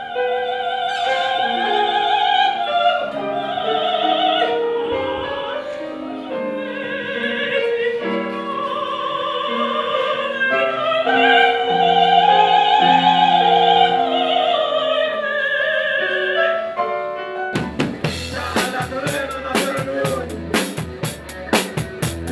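A soprano singing opera with a wide vibrato over instrumental accompaniment, in long held notes. About seventeen seconds in it cuts abruptly to a live band, with a drum kit playing sharp hits.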